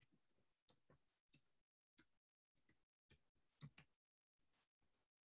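Faint, irregular clicks of typing on a computer keyboard, soft keystrokes spread over a few seconds with short gaps between them.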